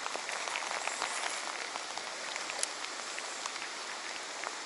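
Steady rain falling on still water: an even hiss dotted with the small ticks of single drops, a few of them sharper.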